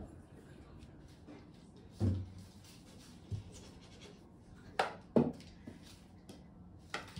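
A handful of separate short thumps and knocks in a small room, the sharpest pair about five seconds in, with quiet room tone between them.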